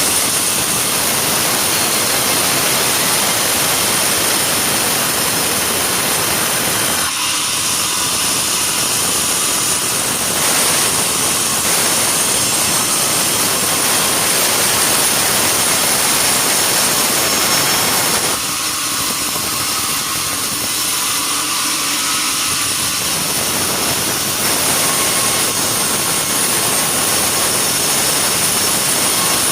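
Sawmill saw running and cutting timber: a loud, steady rushing noise with a high constant tone. The lower part of the sound drops back twice, briefly about seven seconds in and again for a few seconds after eighteen seconds, as the load on the saw changes.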